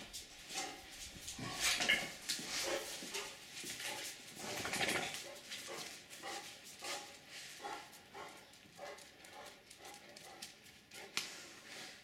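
Dogs barking: many short barks in quick, irregular succession, loudest around two and five seconds in.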